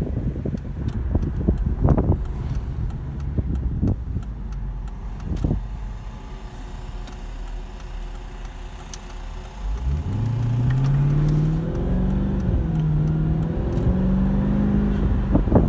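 Mercedes-Benz C55 AMG's 5.4-litre V8 pulling the car along: a low rumble with a few knocks at first, then about ten seconds in the engine note climbs steeply as the car accelerates hard, rising on in steps with a brief dip near the end.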